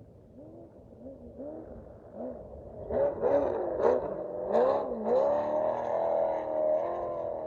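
Unlimited-class off-road race truck's engine revving up and down in quick blips about twice a second, growing louder. It has a few sharp cracks around three to four and a half seconds in, then holds a loud, high, slightly wavering pitch at full throttle from about five seconds in.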